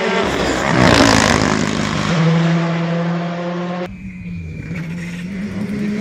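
A rally car passing close at speed: a loud rush of engine and tyre noise about a second in, then its engine note held steady as it pulls away. Near two-thirds through, the sound cuts abruptly to a second rally car, a Škoda Fabia, its engine growing louder as it approaches.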